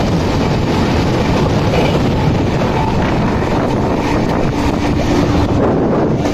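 Steady rumble and rattle of a moving train passing alongside an EMU local train, heard from aboard, with wind buffeting the microphone. Near the end the hiss thins briefly as the end of the EMU goes by.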